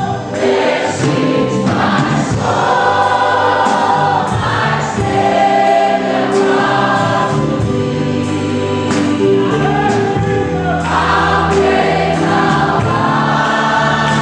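Choir or congregation singing a gospel worship song, with instrumental backing and a steady beat about once a second.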